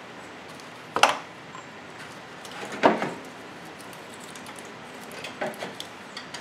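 Two sharp knocks about two seconds apart, the second louder, then a few lighter clicks and rattles near the end: hands handling hard parts in a car's engine bay while reconnecting hoses and electrical plugs.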